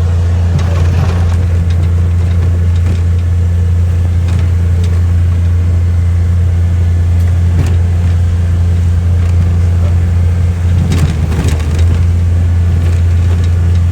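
Steady low hum of a vehicle engine running, with a few faint clicks and knocks over it.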